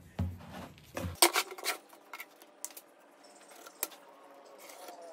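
Light, scattered knocks and clicks of wooden boards and a steel ruler being handled and set down on a wooden workbench.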